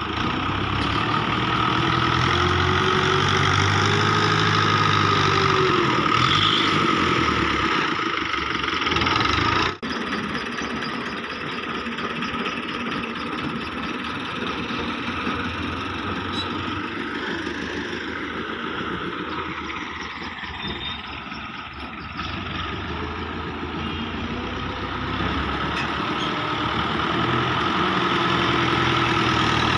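Tractor diesel engine working under load as its front blade pushes soil, the engine note rising and falling. About ten seconds in, the sound cuts abruptly and the engine runs on quieter and steadier, then picks up again near the end.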